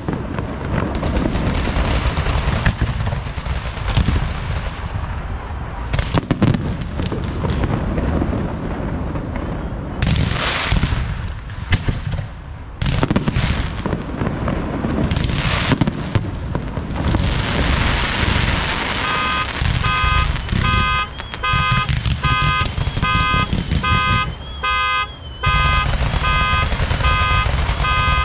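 Aerial fireworks going off in a dense run of bangs and crackling. About two-thirds of the way in, an electronic alarm joins with a steady pulsing of several beeping tones, sounding over the continuing booms.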